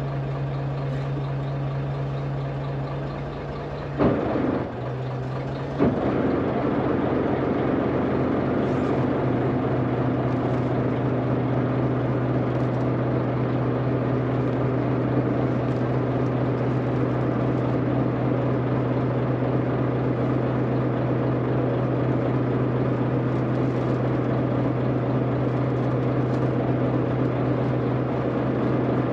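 Chartered fishing boat's engine running steadily, with two sharp knocks about four and six seconds in, after which the engine runs louder.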